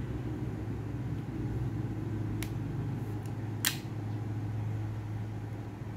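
Steady low mechanical hum, with two brief sharp clicks a little over a second apart around the middle.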